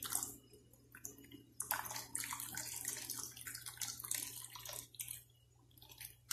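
Cornstarch slurry pouring from a bowl into a pot of sugar water, splashing in uneven gushes as it is stirred in with a spatula; the splashing eases off about a second before the end.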